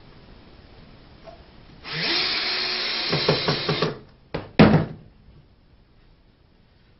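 Cordless drill driving a screw through a small angle bracket into a wooden shelf stretcher, running for about two seconds and pulsing as the screw goes home. Two sharp knocks follow, the loudest sounds.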